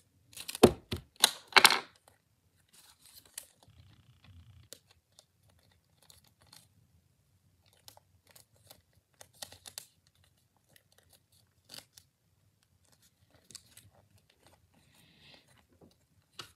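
Paper being handled during paper crafting: a few loud rustles in the first two seconds, then faint, scattered rustles and small taps.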